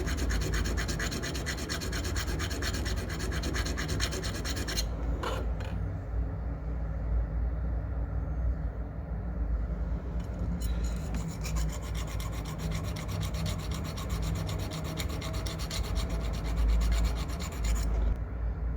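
Fast rasping of a silver chain clasp being abraded at the jeweller's bench, over a steady low hum. The rasping stops about five seconds in and starts again around ten seconds later.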